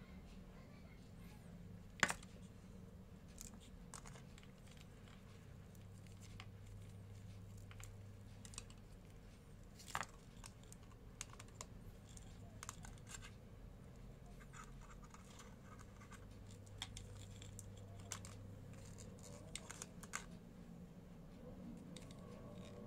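Faint handling noise: scattered small clicks, taps and scratches as KZ ZSN Pro X in-ear earphones, their braided cable and the packaging are handled, over a low steady hum. Two sharper clicks stand out, about two seconds in and about ten seconds in.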